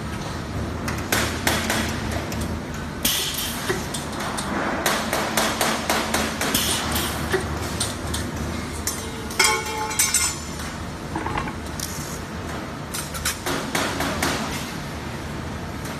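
Sheet-metal parts and fixture clamps clanking and knocking irregularly as they are handled on a welding jig, some hits ringing briefly, over a steady low workshop hum.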